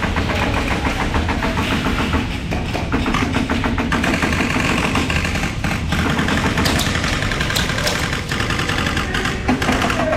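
Airsoft guns firing on full auto, a fast, steady rattle of shots that keeps going with only brief breaks.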